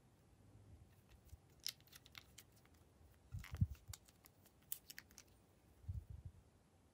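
Light plastic clicks and taps from handling a small lip gloss tube and its cap, with soft low knocks about three and a half seconds in and again near the end.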